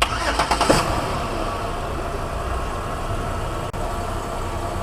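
2008 Chevy Uplander engine cranking and catching in the first second, then running at a steady idle. It starts with a temporary ground wire clipped from the battery to the engine, the sign of a bad engine ground.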